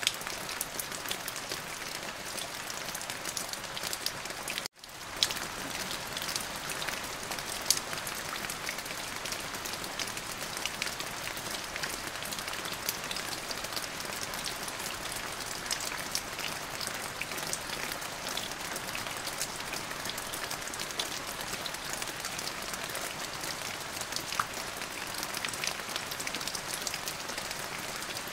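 Steady rain falling on a surface, a dense patter of many individual drop hits with a few sharper ones standing out. The sound cuts out for an instant a little under five seconds in, then resumes.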